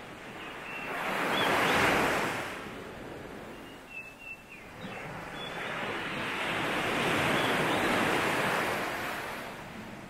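Sea surf washing onto a beach in two swells, the first peaking about two seconds in and a longer one later. Faint short bird chirps are heard between the waves.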